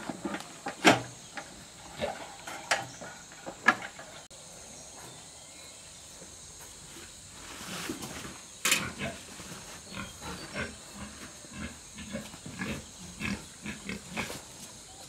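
An animal grunting in short, repeated calls, with scattered sharp knocks, the loudest about one second in and near four seconds in.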